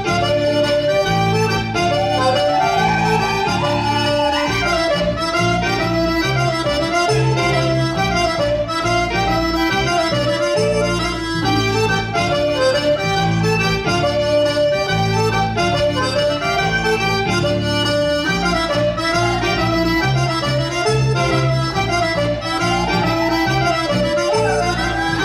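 Accordion playing a Breton dance tune, a running melody over a steady, evenly repeating bass.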